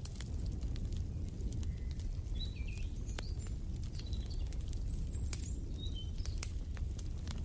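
Wood fire crackling, scattered sharp pops over a low steady rumble. Short bird chirps join about two seconds in and stop shortly before the end.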